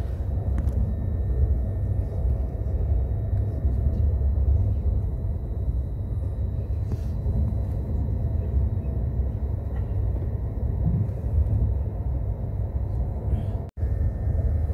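High-speed train heard from inside the passenger car while running at speed: a steady low rumble with a faint, steady high-pitched whine. The sound drops out for an instant near the end.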